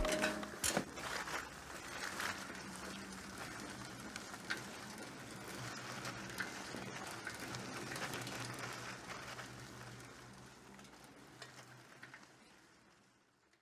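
Light scattered clicks and taps of small parts and tools being handled, over a steady hiss and faint low hum. The sound fades away near the end.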